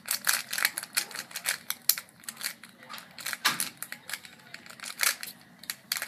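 Square-1 puzzle being turned quickly during a speedsolve: a rapid, irregular run of plastic clicks and clacks as its layers twist and slice.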